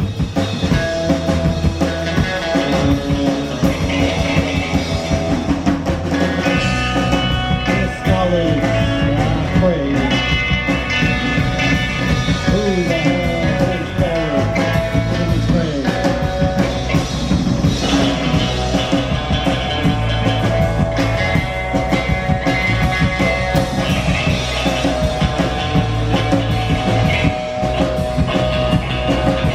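Live rock band playing loud and without a break: electric guitar over bass and drum kit, with guitar notes sliding up and down in pitch.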